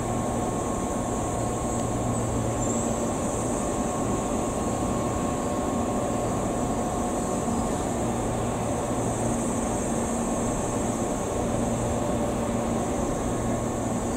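Steady hum and whine of an electric train standing at a station platform, its air conditioning and electrical equipment running, over a constant high hiss.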